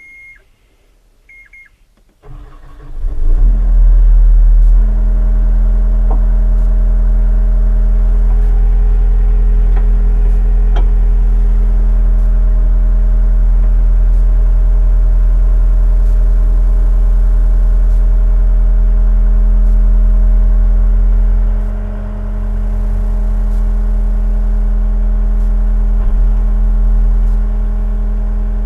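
A few electronic beeps, then the Yanmar Tier 4 diesel engine of a John Deere E-Series skid steer cranking and starting about two seconds in, rising in pitch and settling to a loud steady run. Its note dips briefly a little over twenty seconds in, and it runs on slightly quieter.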